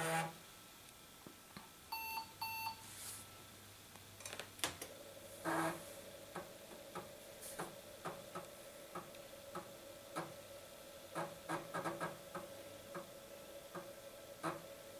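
IBM 5140 PC Convertible booting: two short electronic beeps about two seconds in, then its 3.5-inch floppy drive clicking repeatedly and giving short buzzes over a steady hum as it reads the boot disk.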